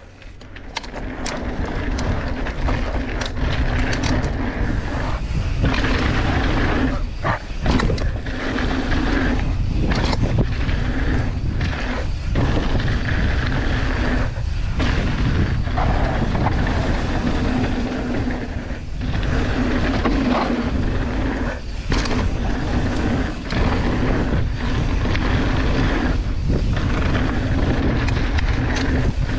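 Mountain bike ridden down a dirt and gravel trail: a steady rush of wind over the camera microphone mixed with tyre noise and rattling from the bike, dipping briefly every few seconds.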